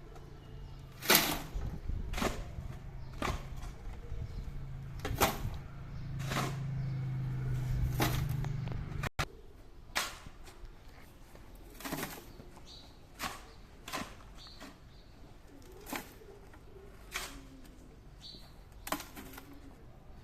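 Sharp knocks or taps repeated roughly once every second or two, like work blows. A low steady hum runs under them and stops suddenly about nine seconds in.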